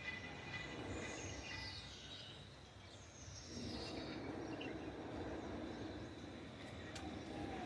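Garden ambience: birds calling, with a few falling high chirps about a second in and again around three seconds, over a steady faint high insect-like hum and background noise.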